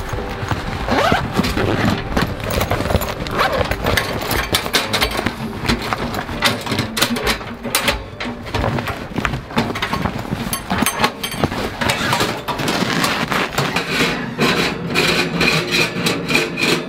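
Handling noise as a metal wood-burning stove is unpacked from its fabric carry bag and set up: bag fabric rustling with many short knocks and clanks of metal stove parts.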